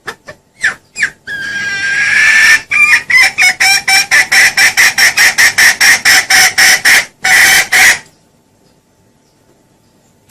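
Junglefowl calling, played as a lure call: a few short notes, one long rising note, then a fast run of loud clucks at about five a second, ending in a longer note about eight seconds in.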